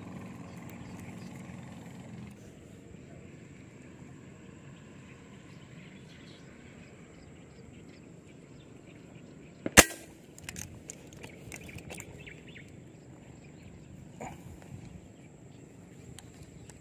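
A single sharp airgun shot about ten seconds in, fired at tilapia in a pond, followed by a few light clicks.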